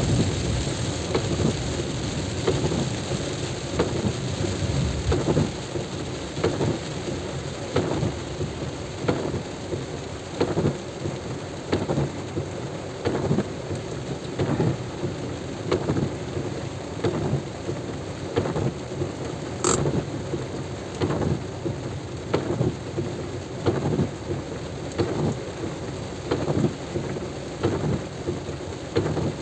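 Heavy rain and wind noise, with short thumps coming at a steady rhythm of about one to two a second, and one brief high blip about two-thirds of the way through.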